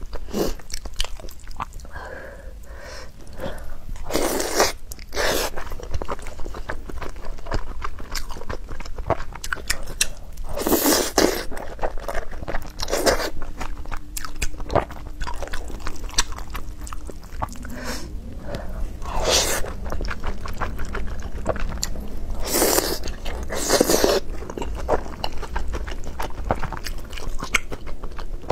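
Close-miked eating of beef rice noodle rolls: steady chewing and wet mouth sounds, with several louder, brief sounds spread through.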